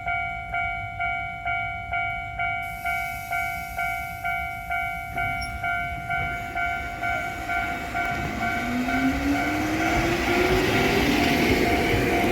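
Japanese level-crossing warning bell ringing in an even clang about twice a second. From about halfway an electric train draws near, its running noise growing louder with a slowly rising motor whine until it drowns the bell near the end.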